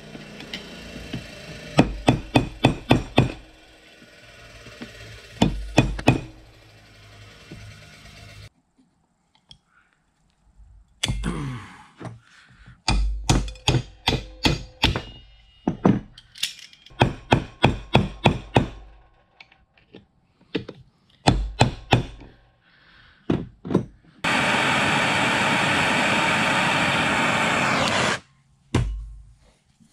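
Runs of sharp hammer strikes on a chisel and punch driven against a seized key in the steel shaft of a Bridgeport 6F power feed gearbox; the key is stuck fast and the blows do not shift it. Near the end there is a steady hiss for about four seconds that cuts off suddenly.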